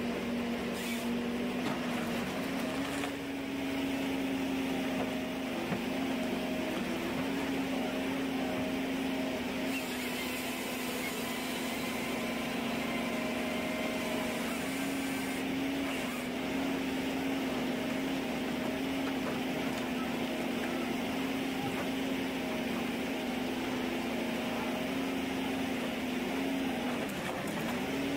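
Ponsse Ergo forestry harvester working a log: a steady engine drone that steps up slightly in pitch about three seconds in and dips briefly near the end.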